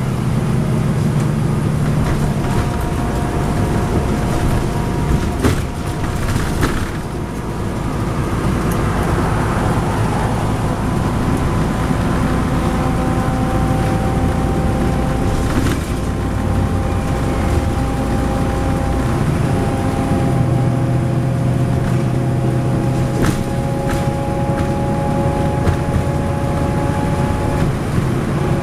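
Interior of a 2010 NABI 40-SFW transit bus cruising at highway speed, heard from the rear seats: its Cummins ISL9 inline-six diesel runs steadily under tyre and road noise, with a steady whine over the drone. A few sharp rattles or clicks come through now and then.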